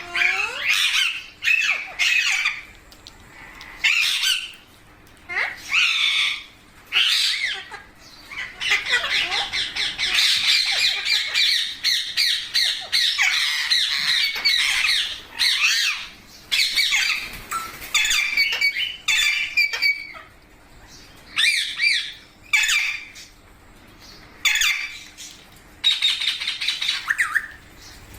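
Pet rose-ringed (Indian ringneck) parakeet squawking and chattering: short repeated calls, a long unbroken run of chatter from about a third of the way in to past the middle, then single calls a second or two apart.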